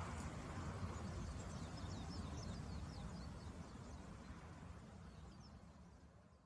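Faint outdoor ambience: a steady low rumble with small birds chirping, a run of short high calls about two to three seconds in. The sound fades out near the end.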